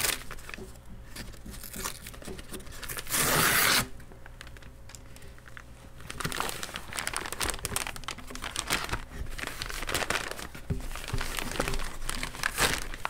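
A shipping package being torn open by hand: one loud rip about three seconds in, then the crinkling and rustling of packaging as it is pulled apart.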